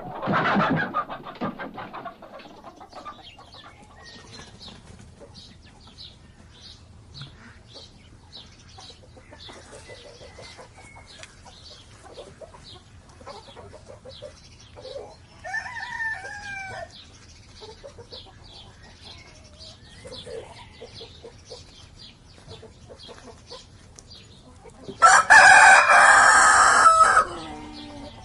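Chickens clucking in a farmyard, with a fainter call about halfway through and a rooster crowing loudly for about two seconds near the end. A loud animal call sounds right at the start.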